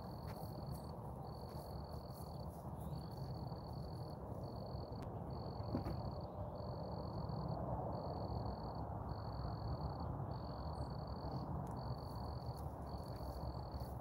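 Cricket trilling in a steady run of high pulses about a second long with short gaps, over a low steady background rumble.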